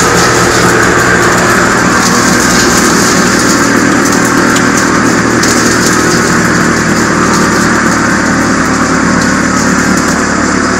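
Drum wood chipper running steadily: a loud, continuous machine drone with a steady low hum.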